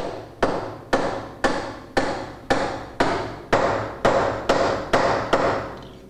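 Hammer striking a tubular drift to drive the main ball bearing onto an Austin-Healey gearbox input shaft: about a dozen steady blows, roughly two a second, each ringing out. The blows stop near the end and the last ring fades.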